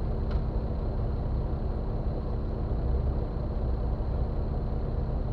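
Jeep Wrangler Rubicon's engine running steadily at low revs, a constant low rumble heard through the hood.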